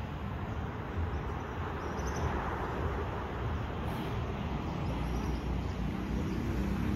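Steady outdoor background noise with a low rumble, and a few faint, short high chirps.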